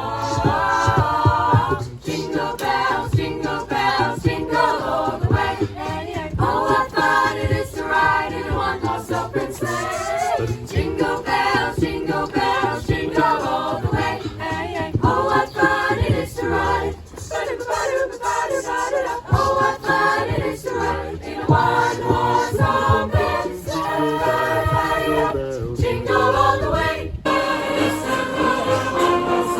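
A choir singing with musical accompaniment: several voices holding and moving between sung notes over a pulsing low part.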